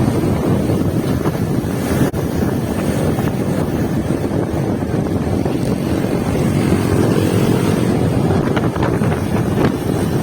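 Wind rumbling steadily on the microphone, a loud low buffeting noise with no clear engine pitch or rhythm.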